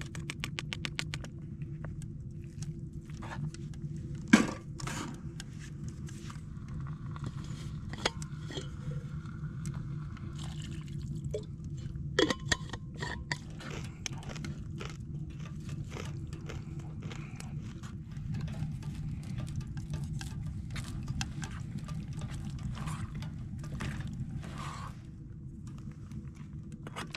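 MRE food being squeezed from its pouches into a small metal pot, then a spoon stirring and scraping in the pot on a stainless steel tent wood stove, with scattered clinks of metal cookware. A sharp clank about four seconds in is the loudest sound; a steady low hum runs underneath.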